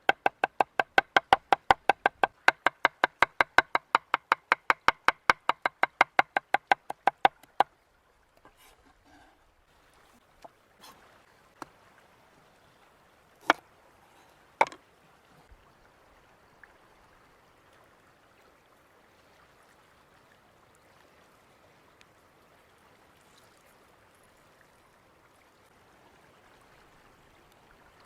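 Knife chopping rapidly on a cutting board, about four or five even strokes a second, stopping about seven seconds in. A few separate knife knocks on the board follow, then only faint background noise.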